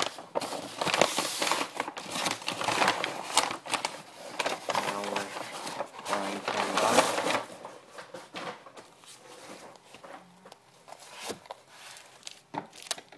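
Packaging being handled and crinkled, rustling with scattered clicks and small knocks, busiest over the first half and then quieter and sparser.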